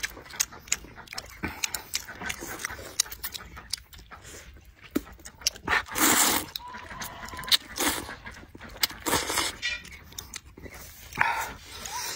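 Close-up eating sounds of spicy noodles: wet chewing and lip smacks as quick clicks, with a loud slurp of noodles about halfway through and a few shorter slurps after it.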